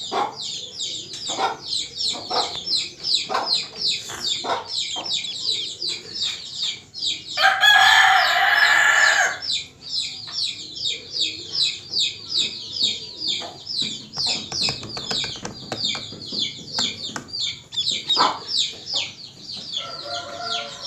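Domestic duckling peeping rapidly and continuously, about four high peeps a second, each falling in pitch. About a third of the way in, a much louder, longer call from another bird cuts in for nearly two seconds.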